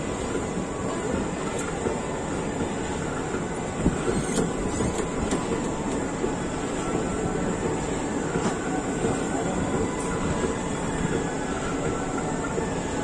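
Indian Railways ICF passenger coach running along the track past a station platform: a steady rumble and rattle of wheels and coach body, heard from the open doorway, with a few sharp clicks about four to five seconds in.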